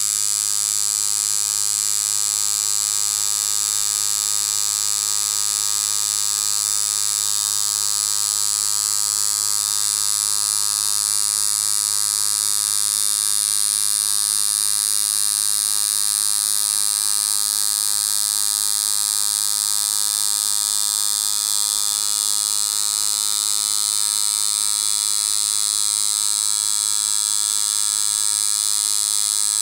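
Deki Irons Sensei rotary tattoo machine running at about 7 volts, a steady, unbroken buzz as the needle pulls one long line through practice skin.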